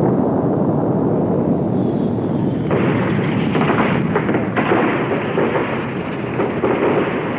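Loud, continuous rumbling, crackling noise, in the manner of an explosion effect, turning harsher and brighter about three seconds in.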